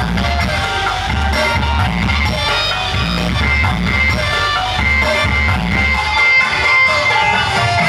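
Music played loud through a large outdoor Java Audio PA speaker stack on sound check, with a strong, regular bass beat. The bass drops out for about a second and a half near the end, then comes back in.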